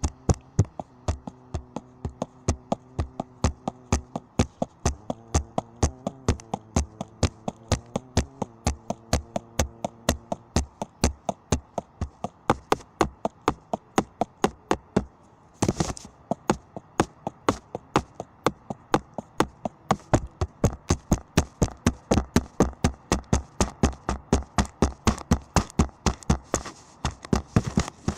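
A small engine running with sharp, regular ticks, about three a second and speeding up to about five a second in the last third. A faint steady hum sits under the ticks for the first ten seconds.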